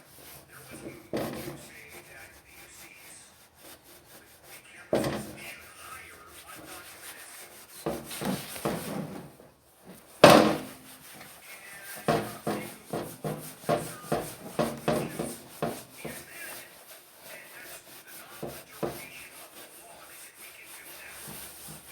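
Hand cleaning on a 1960s Monarch engine lathe: irregular rubbing and scrubbing strokes on its surfaces, with a few sharp knocks, the loudest about ten seconds in.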